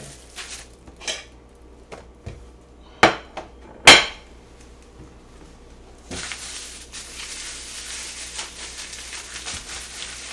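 Kitchen dishware knocked down on the counter: a few light clicks, then two sharp knocks about a second apart. From about six seconds in, a plastic bag of frankfurter sausages crinkles steadily as it is handled and opened.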